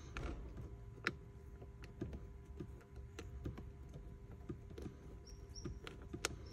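Scattered light clicks and knocks of hand tools and plastic car interior trim being handled while a center console is screwed back in, with a sharper click about a second in and another near the end.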